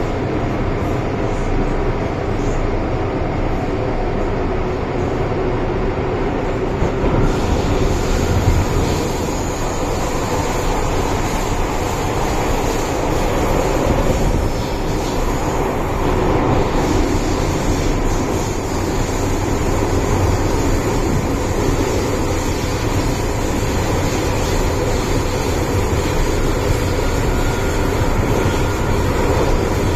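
Cabin noise of an MTR M-Train electric multiple unit running through a tunnel: a steady rumble of wheels and running gear. A brighter rushing hiss joins about seven seconds in.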